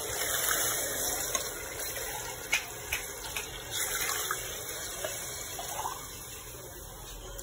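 Water poured from a tumbler into a pot of simmering chicken, splashing into the broth as glassful after glassful goes in, with a few light knocks of the tumbler against the metal skimmer and pot.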